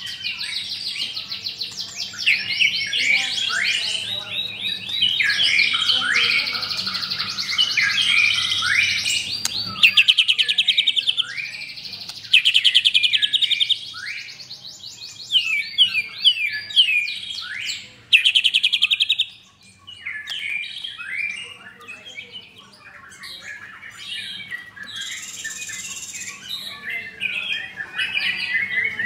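White-rumped shama singing: long, rapid phrases of fast trills and varied whistles, loudest in the first two-thirds, then a short break and softer, more broken phrases.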